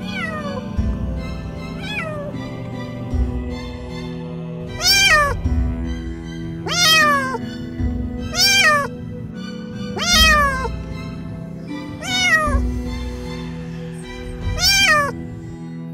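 A kitten stuck to a mouse glue trap meowing over and over: about eight high calls, each falling in pitch, coming every second or two. Soft background music plays underneath.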